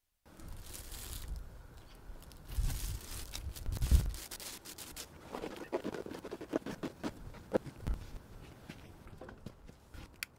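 A hatchet chopping lumps of coal on a wooden board, with dull thuds, then coal lumps knocking and clattering as they are tossed by hand into a cut-open steel propane cylinder forge.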